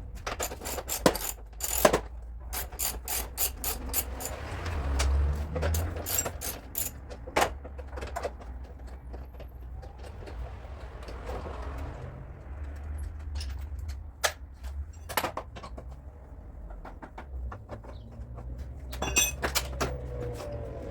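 Hand tools at work in a body shop: irregular sharp metallic clicks and taps, in quick runs about a second in, again near the middle and near the end, over a steady low hum.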